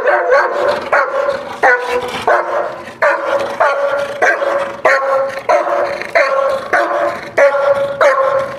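A large shepherd-type dog barking over and over in a steady rhythm, about three barks every two seconds.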